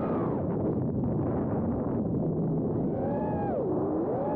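Brushless motors and tri-blade props of a 4-inch FPV quadcopter whining under throttle, heard through its onboard camera with rushing air noise. The whine drops away right at the start, leaving only the air rush for a couple of seconds. It returns about three seconds in, dipping sharply in pitch and climbing again as the throttle is worked.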